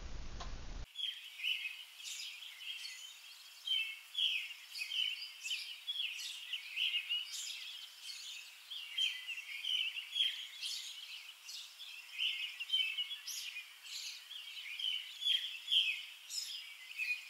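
Wild birds chirping and singing outdoors, many short high calls overlapping in a steady chorus that starts about a second in.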